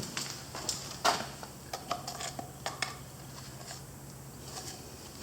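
Scattered clinks and light knocks of the oil bottle and funnel being handled while refilling the ATV engine with fresh oil, the loudest knock about a second in.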